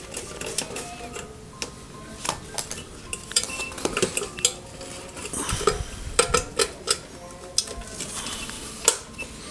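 Irregular metallic clinks, taps and scrapes of hand tools working against the metal body of an electric cooking pot while its thermal fuse is worked free, some taps ringing briefly.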